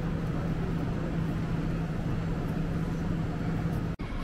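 Train at a station platform: a steady low electrical hum over a rumbling background. The hum stops abruptly at a brief dropout near the end.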